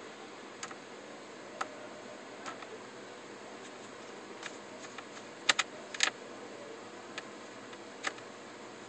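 Phillips screwdriver turning small screws into a Toshiba Satellite C650's plastic screen bezel: scattered light clicks and ticks, with a louder cluster of clicks about halfway through, over a steady hiss.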